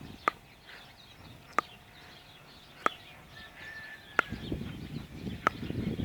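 A bird repeats a short, sharp call five times, about one and a quarter seconds apart, over faint high chirping. A low rumble comes up after about four seconds.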